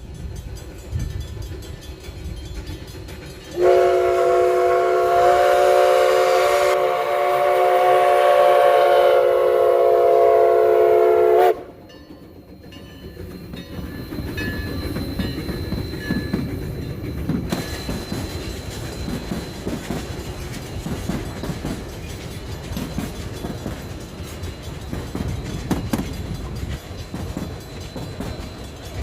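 Huckleberry Railroad 152's steam whistle sounds one long, loud blast of about eight seconds, a chord of several notes held steady, starting a few seconds in. Then the 3-foot narrow-gauge train rolls past with a rumble and a clatter of wheels over the rails.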